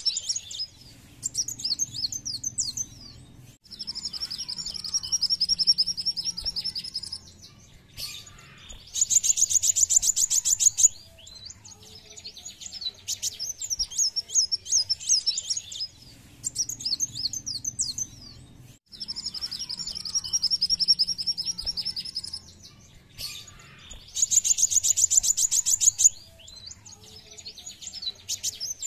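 Kolibri wulung sunbird song: high-pitched bursts of jerky twittering chirps, a long even trill and a faster, higher ticking trill. The sequence of phrases repeats almost identically about every 15 seconds, as a looped lure recording does.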